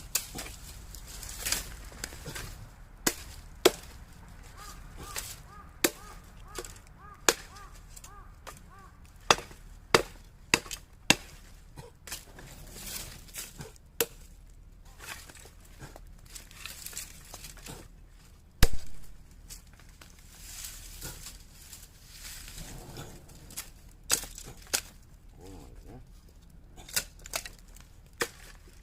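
Heavy chopping knife chopping: a run of sharp, irregular strikes, about one every second or so with short pauses. The single loudest blow falls about two-thirds of the way through.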